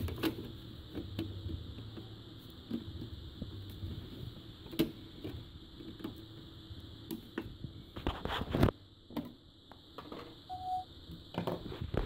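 Hands plugging cable connectors into an LCD TV's main board: scattered small plastic clicks and rustles, the loudest a burst of handling noise about eight seconds in, over a steady high-pitched whine.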